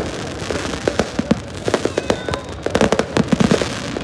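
Aerial fireworks display: shells bursting overhead in a rapid, irregular string of bangs over continuous crackling.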